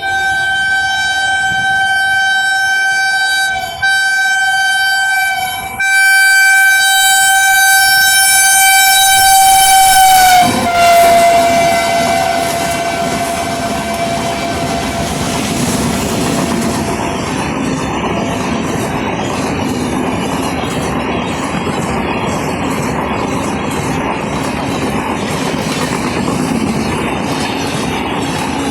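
WAP-7 electric locomotive's shrill horn sounding, broken twice by short gaps, with the last long blast dropping in pitch as the locomotive passes. The coaches of the express train then run past with steady rail clatter.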